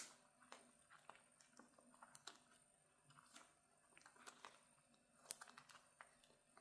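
Faint handling sounds of fingers working the slider of a clear vinyl zip pouch, trying to get the zipper back on its track: a sharp click at the start, then scattered small clicks and plastic rustles.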